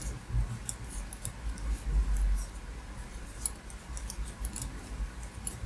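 Wooden double-pointed knitting needles clicking and tapping lightly and irregularly as stitches are worked and cast off, with soft low bumps from the hands handling the work.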